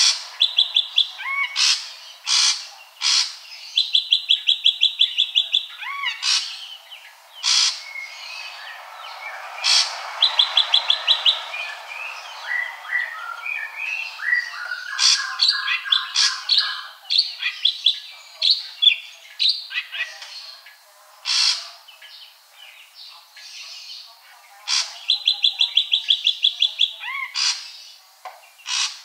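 Ashy drongo calling: a varied run of sharp whistled calls and chatter, broken four times by bursts of rapid, evenly repeated high notes, each lasting a second or two.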